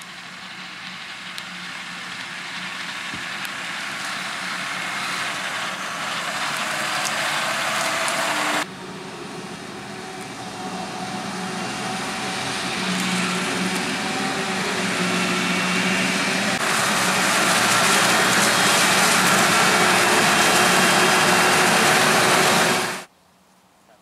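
Claas Jaguar 970 forage harvester chopping maize, its engine and chopper running, with tractors pulling trailers alongside. The sound grows steadily louder as the machines come closer. It jumps abruptly twice, then drops suddenly to a faint machine sound near the end.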